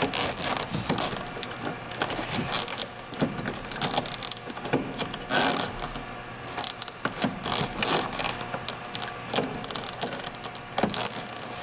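Hands squeezing and pulling on a plastic door-pull bezel in a car door panel, with irregular clicks, knocks and scraping of plastic trim; the bezel does not pop out.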